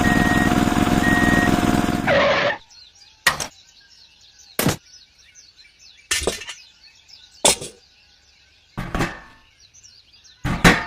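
A loud steady mechanical noise with a held tone runs for about two seconds and cuts off suddenly. Faint bird chirping follows, broken by six separate sharp knocks.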